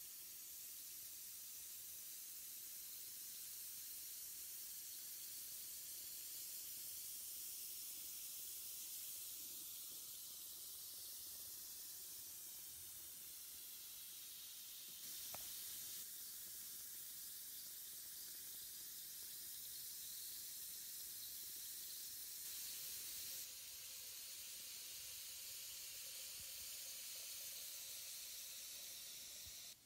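LUSH April Showers bath bomb fizzing in bathwater: a steady soft hiss, with one faint click about halfway through.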